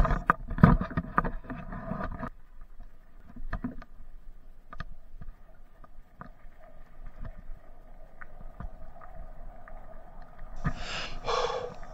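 Polygon Siskiu D5 mountain bike clattering and rattling over loose rocks for the first two seconds, then a quieter steady rumble with scattered ticks as it rolls on a smoother dirt road, picked up by a helmet-mounted action camera. Near the end come two short high-pitched sounds.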